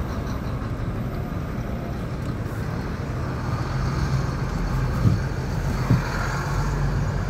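Engine and road noise of a moving vehicle heard from inside it, a steady low drone. Two short knocks come about five and six seconds in.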